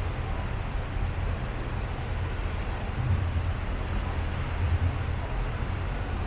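Low, steady engine drone of a river tour boat under way, with an even rushing hiss over it.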